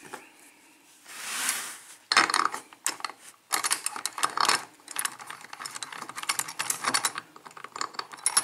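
Dense, irregular metallic clicking and rattling as a Schlage pin-tumbler lock cylinder is handled, after a short soft scraping rustle about a second in.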